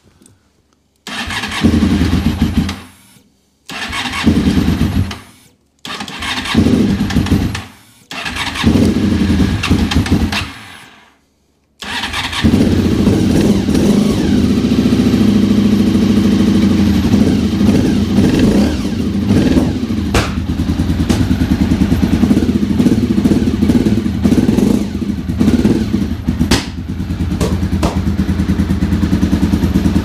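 Honda RC45's 750 cc V4 engine being started from cold with the choke fully out: four short starting attempts of about two seconds each with pauses between, then about twelve seconds in it catches and keeps running unevenly, spitting and puffing through the Termignoni exhaust. The owner puts the poor running down to a lot of unburned fuel, and the bike is said to be running on only two of its four cylinders.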